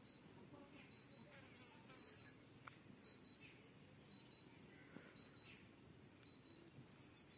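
Near silence: faint background with a short, soft, high blip about once a second.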